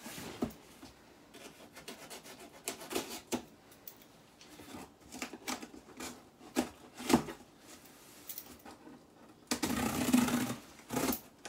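Cardboard shipping box being opened by hand: scattered scrapes, rubs and short clicks at the taped flaps, then a longer rasping stretch near the end.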